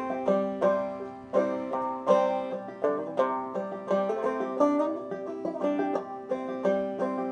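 Five-string banjo played clawhammer style, a steady run of plucked notes several a second over a constantly ringing drone string. It is in double C tuning with the D string tuned up to E.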